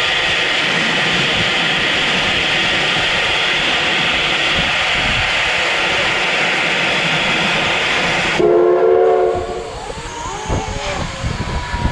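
JNR Class C10 tank steam locomotive blowing off steam in a loud, steady hiss. The hiss cuts off about eight seconds in as the steam whistle gives a short blast of several tones at once. After that come quieter steam sounds and scattered knocks.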